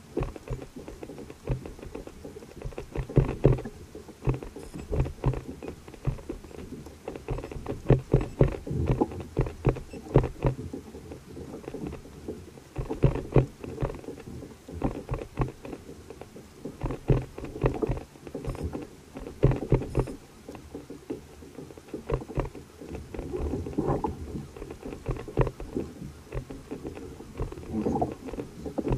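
Water slapping against a fishing kayak's hull in an irregular patter of knocks and splashes.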